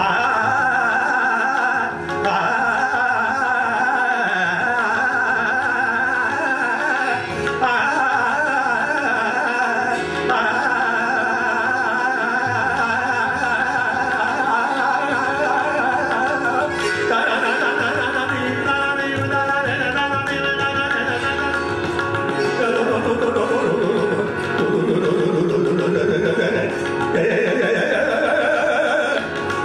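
Hindustani classical khyal singing by a male vocalist, with gliding, ornamented phrases over a steady drone and instrumental accompaniment. Rapid melodic runs come about halfway through.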